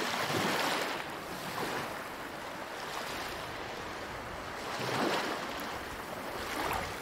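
A steady rushing, hissing noise that swells louder about four times and eases back between.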